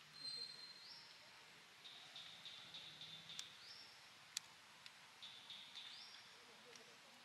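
Faint high-pitched animal calls in the background, each a held note that steps up to a higher one, repeating every second or two, with a couple of sharp clicks around the middle.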